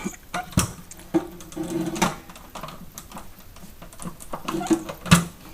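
Plastic and metal parts of a salon hair dryer clicking and knocking as they are handled and pushed into place, with a few sharper knocks about half a second, two seconds and five seconds in, and light rattling between them.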